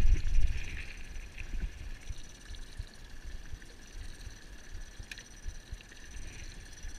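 Wind buffeting the microphone over water slapping against a small boat's hull, the buffeting strongest in the first second.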